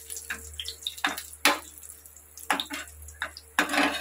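Raisins frying in hot ghee in an aluminium pan, stirred with a metal slotted spatula: a sizzle broken by repeated short scrapes and hisses, over a steady low hum.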